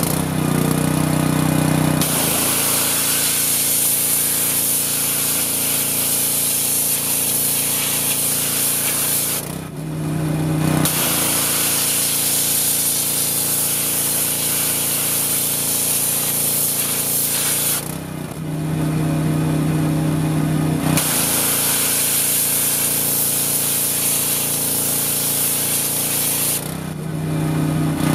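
Subaru-engined gas pressure washer running, its 40-degree tip spraying a shad to blast off the scales. The spray hiss starts about two seconds in and comes in three long bursts, with two short pauses and one near the end where only the engine is heard.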